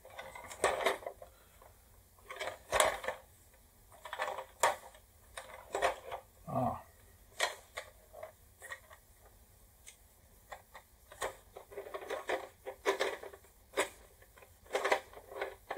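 Hard plastic parts of a late-1970s Run Yourself Ragged toy clicking, knocking and rattling as it is handled and taken apart, in irregular clusters of sharp clicks.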